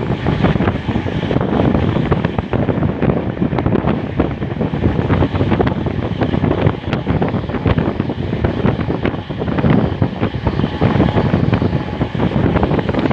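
Wind buffeting the microphone: a loud, gusty rumble that rises and falls.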